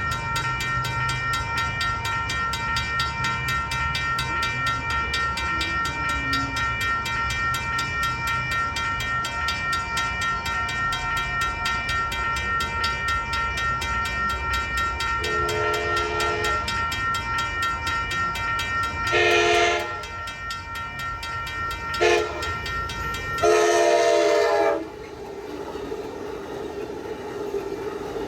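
Railroad crossing warning bell dinging steadily and rapidly while an Amtrak train approaches and sounds its horn four times, long, long, short, long: the standard grade-crossing signal. The bell stops about 25 seconds in, and the train is heard passing through the crossing near the end.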